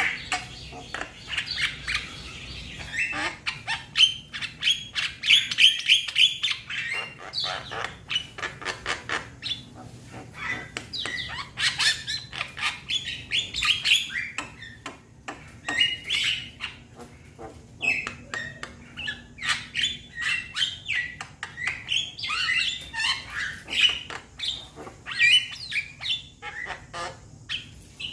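Young Javan myna (jalak kebo) calling: a continuous stream of harsh squawks, chirps and clicks in quick succession, with no pauses.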